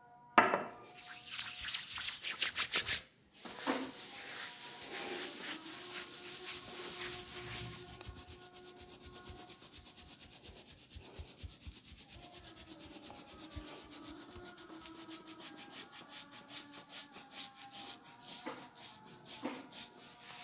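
A sharp knock about half a second in, then oiled palms rubbed briskly together, then fingers rubbing and scrubbing through oiled hair and scalp in fast, even rhythmic strokes during a head massage.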